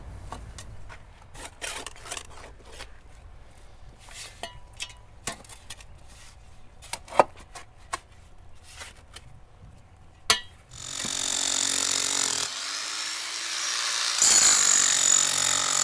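Scattered scrapes and knocks of hand work around the sewer pipe. About ten seconds in, a power tool starts and runs loudly and steadily, with a short break near the end.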